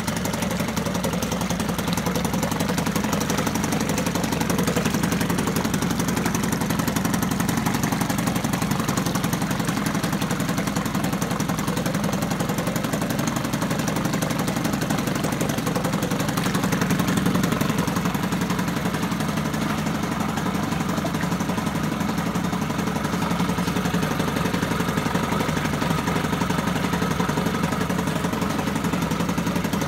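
Johnson 9.9 Sea-Horse two-stroke outboard motor running steadily with its lower unit in a test barrel of water, the water churning around it.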